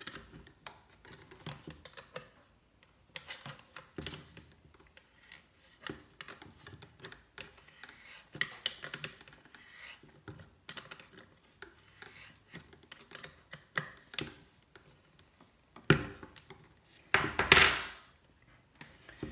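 Small, irregular clicks and rattles of hands handling and tightening the nut on a banana-jack binding post in a panel, with a sharp louder knock and then a short louder clatter near the end.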